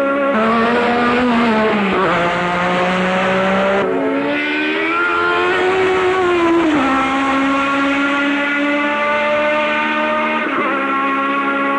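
Engine of a 1984 Formula 1 car running hard. Its note drops sharply about two seconds in, climbs again, then falls back near seven seconds, as with gear changes and throttle lifts.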